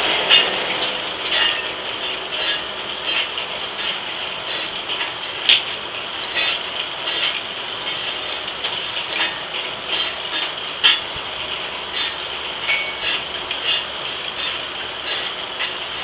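Ratcheting setworks on an antique circular sawmill's carriage, clicking irregularly as the sawyer works the lever to set the next board, over the steady run of the mill.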